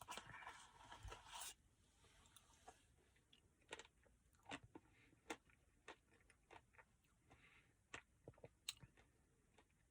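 Quiet close-up mouth sounds of a person chewing a mouthful of ice cream Blizzard. A soft rustling noise fills the first second and a half, then scattered sharp wet clicks and smacks follow.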